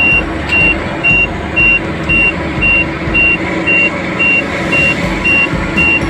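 Reversing alarm on heavy mining machinery beeping in an even, high-pitched pulse about twice a second, over the continuous running of big diesel engines.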